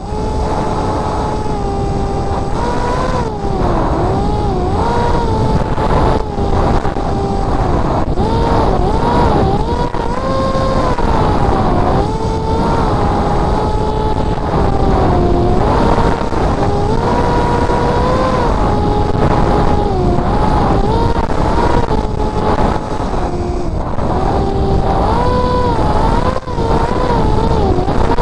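Electric motor and propeller of a Spec Wing RC flying wing, heard from an onboard camera in flight: a steady whine whose pitch rises and falls many times as the throttle changes, over heavy wind rush on the microphone.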